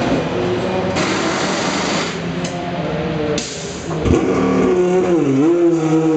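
Oreca LMP1 prototype's engine running in the pit box, with two spells of hissing and a sharp knock about four seconds in. Then the engine note dips and climbs as the car is revved to pull away.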